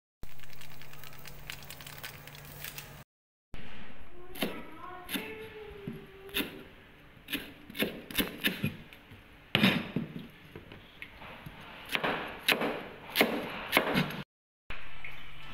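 Steel cleaver chopping lemongrass and root slices on a wooden cutting board: a series of sharp, irregular chops. Before it, for the first few seconds, a pot of water bubbling on the stove.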